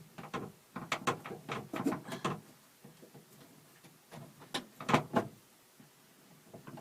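Clicks and rattles of the minivan sliding door's lock cable and inner mechanism as the cable is pulled and worked free, in two clusters of short knocks with a pause between, the loudest about five seconds in.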